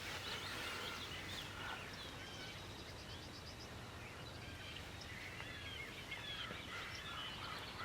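Birds calling in spring woods: many short chirps scattered throughout, with a quick high trill about three seconds in.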